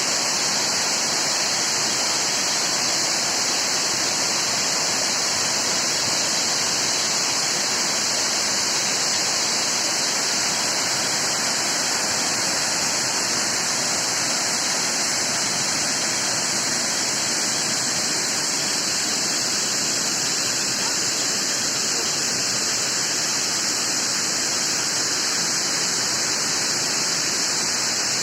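Waterfall's water rushing steadily, a constant hiss strongest in the treble.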